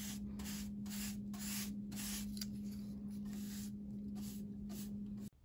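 Paintbrush swishing chalk paint onto a dresser in repeated strokes, about two a second, over a steady low hum. Both cut off suddenly near the end.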